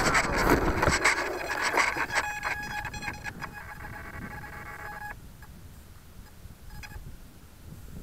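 RC airplane motor and propeller winding down to a stop, fading out over the first few seconds. A steady tone with overtones sounds from about two to five seconds in and cuts off suddenly.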